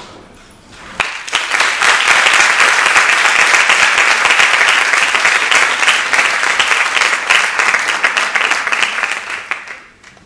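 Audience applauding: the clapping starts about a second in, holds steady and dies away near the end, marking the close of a speaker's talk.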